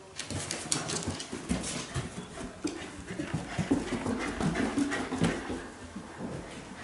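A Shiba Inu moving over wooden stairs: a busy run of claw clicks and scuffs, with short dog vocal sounds mixed in.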